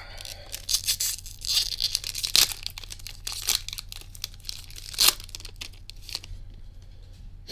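Foil wrapper of a Pokémon card booster pack crinkled and torn open by hand: a run of crackling rips, sharpest about two and a half and five seconds in, then quieter rustling.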